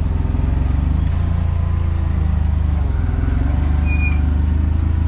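Forklift engine running steadily at a low, even speed, heard from the driver's seat.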